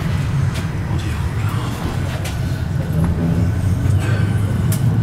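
Tram running along street track, heard from on board: a steady low rumble of wheels and running gear, with a few sharp clicks and rattles.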